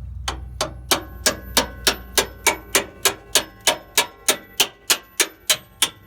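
Hammer striking a steel suspension bolt in steady blows, about three a second, each with a metallic ring, driving the bolt out of a Nissan Xterra's control arm.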